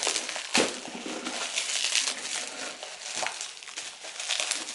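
Bubble wrap crinkling and rustling as it is pulled off by hand, with a couple of sharper crackles, one about half a second in and one around three seconds.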